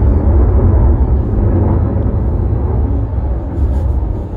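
Low roar of a military jet flying past, easing off slightly toward the end.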